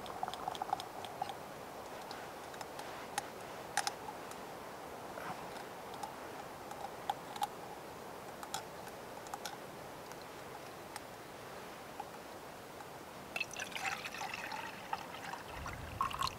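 Light metallic clicks and taps as a small metal cook pot is handled on a gas camping stove. Near the end, water is poured from a metal flask into a metal mug, trickling and splashing.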